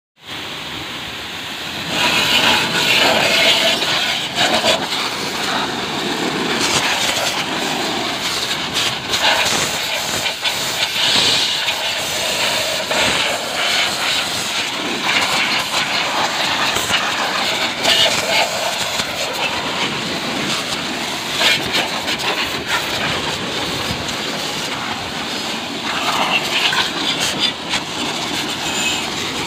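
High-pressure water jet from an HTP sprayer pump lance hissing as it blasts mud off a motorcycle's wheel and engine, getting louder about two seconds in and changing unevenly as the spray moves across the metal and spokes.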